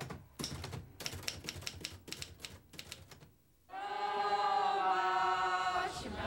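A quick, irregular run of sharp clicks like typewriter keys. After a brief moment of quiet just past halfway, a group of women's voices begins singing together in long held notes.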